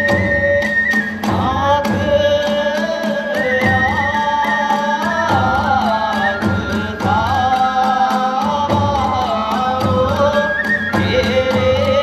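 Kagura hayashi: a bamboo transverse flute over a drum and small hand cymbals keeping a steady beat. About a second in the flute gives way to a voice singing a kagura song with a wavering pitch, and the flute comes back near the end.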